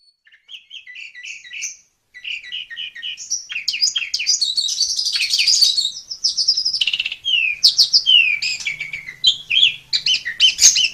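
Asian pied starling (jalak suren) singing: short repeated chirps at first, then a dense, varied run of whistles and rising and falling glides that grows louder.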